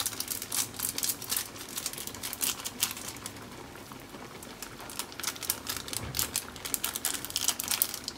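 Dense, irregular crackly ticking as pinches of hibi (small dried shrimp) are sprinkled by hand into fish in broth in a wok, in two spells with a lull in the middle.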